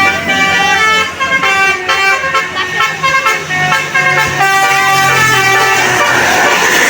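Bus telolet horn playing a quick tune of short stepped notes, several sounding together, over the bus engine working uphill. Near the end the tune gives way to a loud rush of engine and road noise as the bus goes by.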